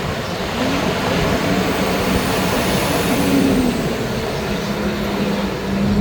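Truck engine running steadily with road noise while driving, a constant low drone under an even rush, and a faint high whine that rises and falls near the middle.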